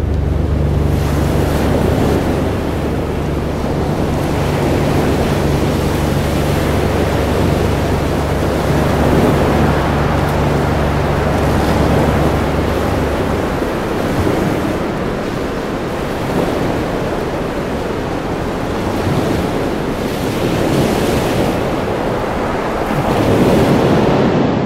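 Sound-design layer of an electronic soundtrack: a loud, even rushing noise like surf or wind. A steady low drone underneath stops about halfway through, and the rush swells near the end.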